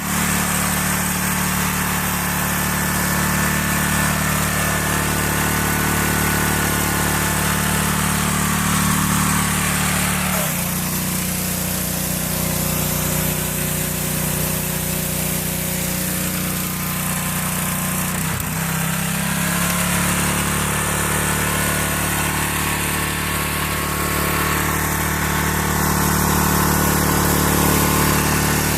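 Small gasoline engine of a pressure washer running steadily; its note shifts about ten seconds in and dips briefly again near eighteen seconds.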